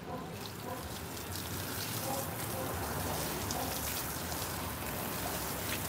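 Water from a garden hose pouring and splashing onto a wet dog and a concrete floor, a steady hiss that comes up just after the start and grows slightly louder.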